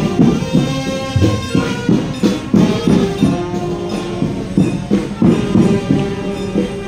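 Funeral music: a melody of held notes over regular percussion beats.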